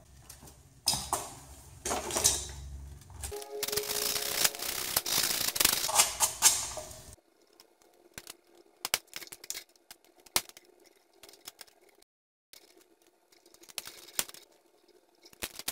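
Sandpaper rasping back and forth on the end of a copper wire for about four seconds, sanding the coating off the hot conductor, followed after a cut by scattered small clicks and taps of pliers and a screwdriver as the wire is bent and looped onto an electrical outlet's terminal.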